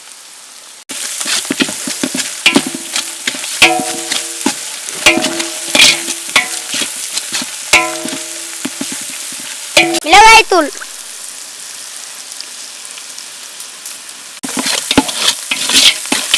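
Onion and spice masala sizzling and crackling in a large aluminium pot while a metal ladle stirs and scrapes it, with the pot ringing under the ladle. The frying starts suddenly about a second in, and there is one loud squeal falling in pitch about ten seconds in.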